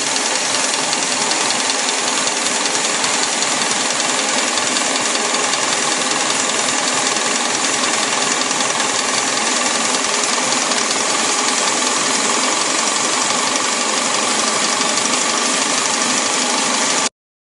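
Rice crust production machinery running, a steady loud mechanical drone with rattling. It cuts off abruptly near the end.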